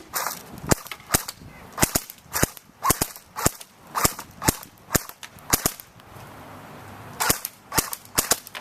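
Metal airsoft gun firing single shots, about two a second, with a pause of about a second and a half after the middle before firing resumes.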